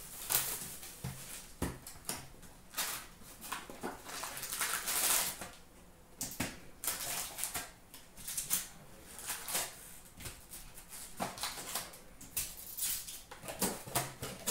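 Hockey card packaging being handled and opened: a run of short crinkles, rustles and taps from the cardboard box, foil pack wrappers and stacks of cards, with a longer stretch of crinkling about four to five seconds in.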